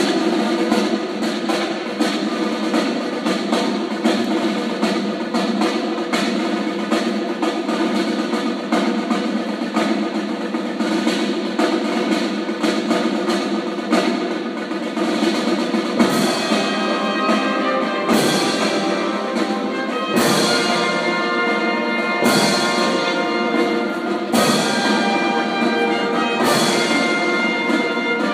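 Youth marching band playing: brass instruments holding chords over fast snare drumming. From about halfway through, heavy bass-drum beats land roughly every two seconds.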